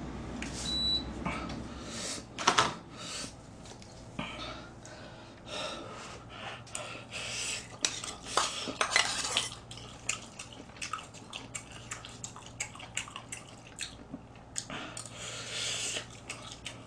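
Metal spoon clinking and scraping against a small metal bowl and pot while eating, many short scattered clinks.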